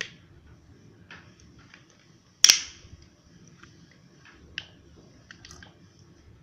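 A few sharp plastic clicks and taps from bottles and a bowl being handled while liquid is poured, the loudest about two and a half seconds in.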